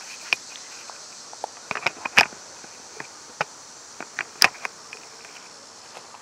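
Steady high-pitched chorus of insects, with scattered sharp clicks and taps on top, the loudest about two and four and a half seconds in.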